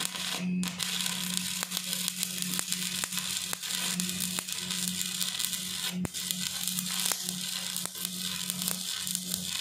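Electric arc welding on steel plate: a continuous crackling arc with many small pops, over a steady low hum. The crackle breaks off for a moment about half a second in and again near six seconds.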